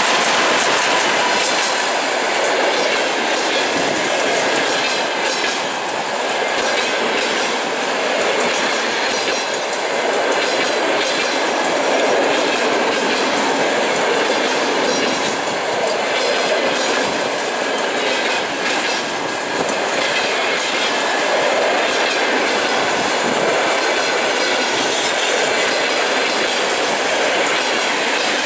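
Passenger train passing close at speed: a ChS4T electric locomotive and then its coaches, with a steady rolling rumble and the wheels clattering over the rail joints.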